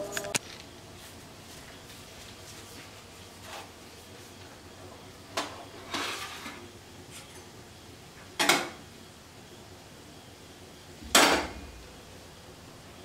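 Stainless steel cooking vessels knocked and set down on a gas stovetop: half a dozen separate metal clanks, the loudest about eleven seconds in, one about six seconds in ringing briefly.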